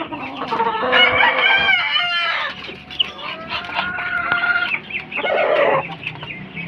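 Poultry calling over one another: a dense run of clucking calls in the first two seconds, a long held call in the middle, and another burst of calls near the end.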